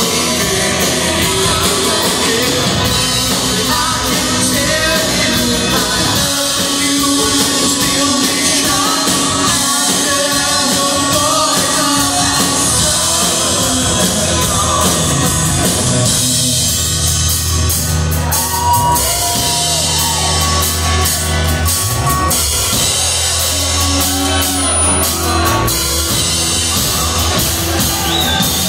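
Live rock band playing a song, with amplified acoustic guitars, electric guitar, bass guitar, drums and singing.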